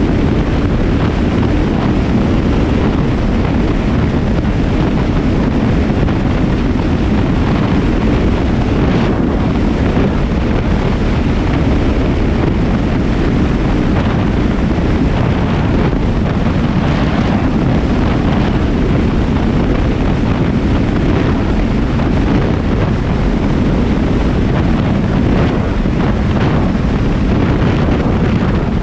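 Vehicle driving at speed: a steady rush of wind buffeting the microphone over road and engine noise.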